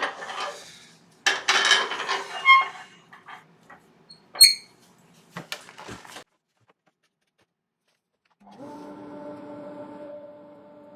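Irregular clattering and rustling of handling at the lathe, with one sharp ringing metallic clink about four and a half seconds in. About eight and a half seconds in, the wood lathe's motor starts and runs with a steady hum.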